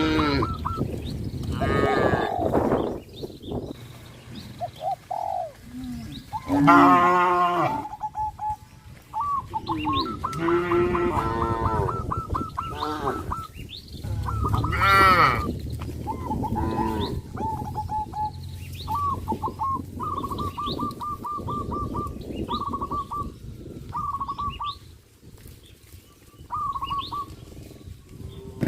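Several cattle mooing, long drawn-out calls overlapping one another again and again, with birds calling in short repeated notes in the background during the second half.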